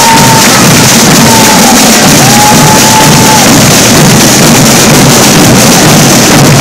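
A massed section of marching snare drums beating a parade rhythm, very loud.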